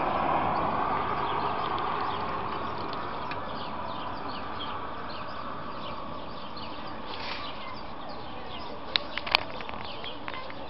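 Rural outdoor ambience: small birds chirping repeatedly over a steady hiss that fades during the first few seconds. Two sharp clicks come about nine seconds in.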